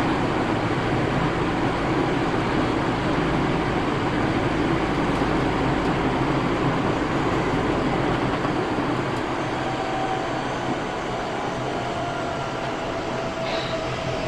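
Eidan 8000 series armature-chopper electric train running, heard from inside the car: a steady deep rumble of wheels, rail and traction equipment. About two-thirds of the way through, the lowest rumble drops away, the sound gets slightly quieter and a thin steady whine comes in. This car is known for the abnormal noise called the 'jet sound'.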